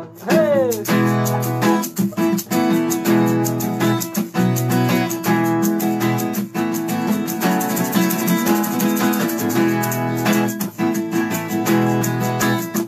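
Acoustic guitar playing a strummed instrumental break between the sung lines of a Bangla Baul folk song, with a steady rhythm throughout.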